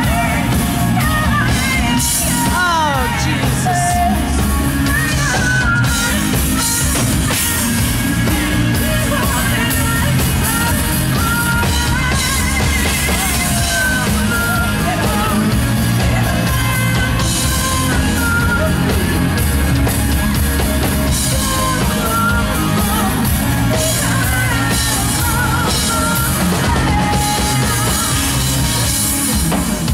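Live rock band: a woman singing lead over drum kit and electric guitar, with no break in the music.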